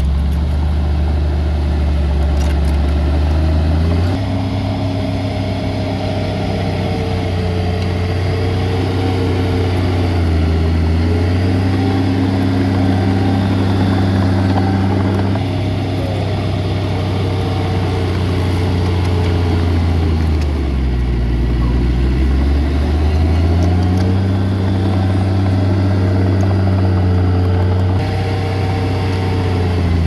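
Heavy earthmoving machinery's diesel engine running loudly, its pitch stepping up and down as the revs change: it dips around ten seconds in and again, more deeply, around twenty seconds in before climbing back.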